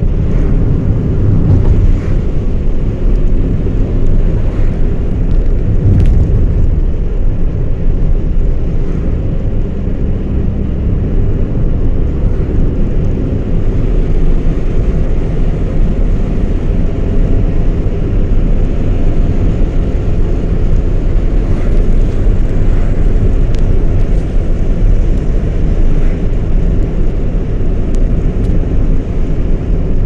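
Car driving along a road, heard from inside the cabin: a steady low rumble of engine and tyre noise, with a few faint clicks.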